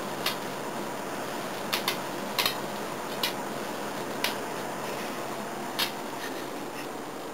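Electric bug zapper's high-voltage grid snapping as insects hit it: about eight sharp, irregular cracks, some in quick pairs.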